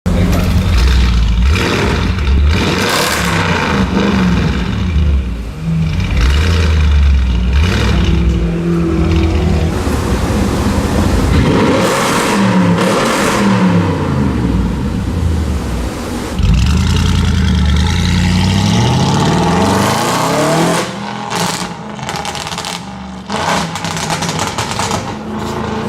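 Audi RS6 C7's twin-turbo 4.0 V8 with a Capristo exhaust, revved up and down over and over. A run of sharp exhaust crackles and pops comes about three-quarters of the way through.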